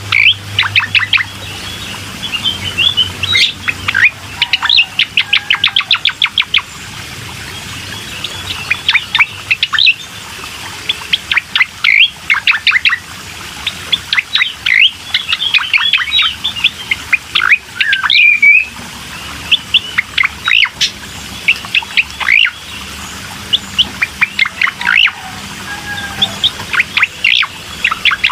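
Cucak koreng songbird singing: fast runs of short, high chirping notes strung into repeated phrases with brief pauses between them.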